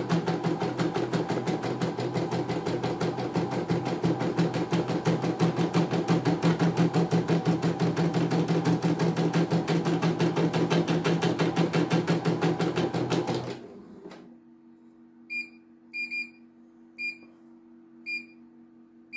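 CNY E900 computerized embroidery machine stitching at speed, a rapid even needle rhythm over a steady motor hum, which stops abruptly about 13 seconds in. After that only a faint hum remains, with several short high beeps about a second apart as its touch-screen buttons are pressed.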